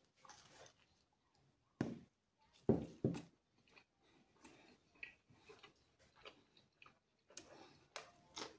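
A person biting into and chewing a slice of thin-crust meat pizza: a few short sharp eating sounds about two and three seconds in, then faint scattered clicks of chewing.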